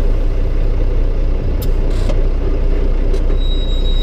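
Semi-truck's diesel engine running steadily in neutral, heard from inside the cab, with a few faint clicks. A faint high tone comes in near the end.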